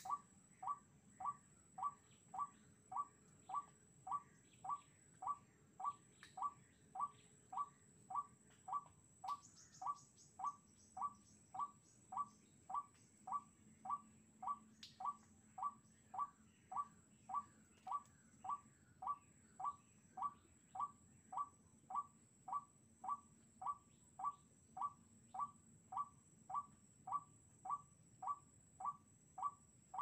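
White-breasted waterhen call played through a Bluetooth speaker as a lure: one short note repeated at a steady rhythm, a little under two a second, without a break.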